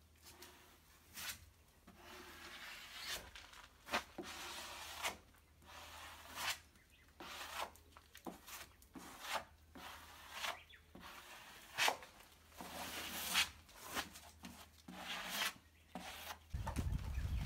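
Hand tool rubbing and scraping across the boat's fore deck during fairing, in irregular strokes broken by sharp clicks and taps. A low rumble comes in near the end.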